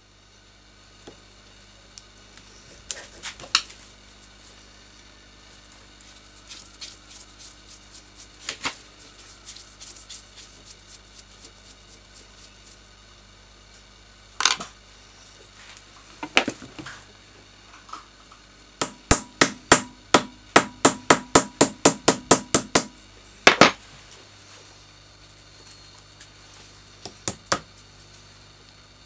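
Metal-on-metal hammer taps on a small brass lamp fitting clamped in a vise. There are a few separate strikes, then a quick run of about eighteen light taps over roughly four seconds in the middle, and a few more near the end.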